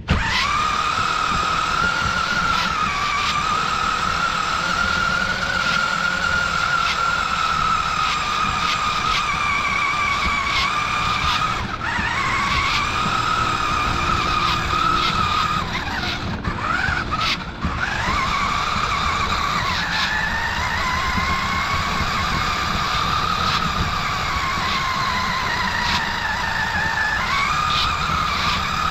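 A toy radio-controlled monster truck's electric motor and gears whine as it drives over grass. The pitch drops and recovers several times as it slows and speeds up.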